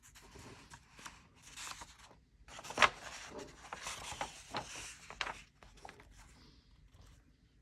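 Faint paper rustling and handling noise, as of a picture book's pages being turned, with a few small clicks and one sharp tap about three seconds in.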